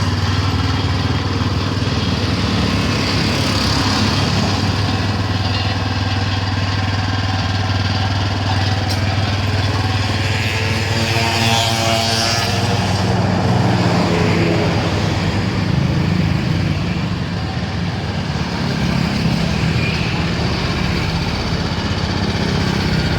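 Kubota KG65 petrol engine on a two-wheel hand tractor, running steadily; a little past halfway its note rises somewhat and holds there.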